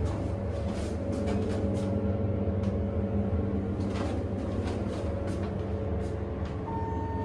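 Hydraulic elevator (Schindler HXPress modernization) cab riding down, with a steady low hum and a few faint clicks. Near the end a steady electronic beep begins: the car's arrival signal at the floor.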